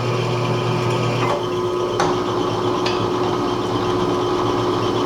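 Drill press motor running steadily as a small 3/32-inch bit slowly drills out a broken bolt, with a few sharp clicks in the first three seconds.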